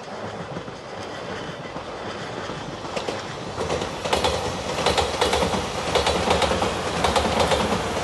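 Five-car JR Shikoku 8000-series electric limited express train (Shiokaze) passing at speed, its wheels clattering over the rail joints. It grows louder through the first few seconds, and the rapid clack of the bogies is loudest from about four seconds in as the cars go by.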